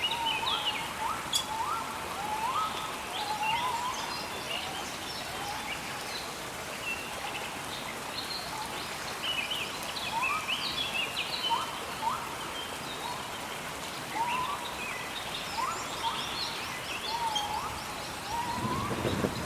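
Rainforest ambience: many birds calling over and over in short, quickly rising notes over a steady hiss of rain. A low rumble of thunder builds in the last second or so.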